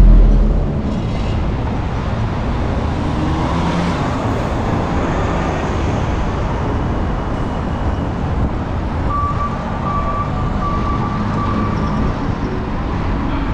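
City street traffic heard from a moving bicycle, a steady rush of road and wind noise with cars passing. About nine seconds in, a thin steady whine sounds for around three seconds.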